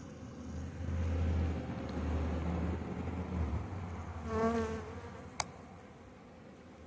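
Honeybees buzzing at an open hive, with a low hum through the first half and one bee passing close by about four and a half seconds in as a brief, louder buzz. A single sharp click follows just after.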